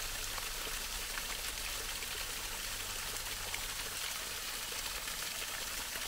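Spring-fed garden stream water running steadily down from one pool to the next.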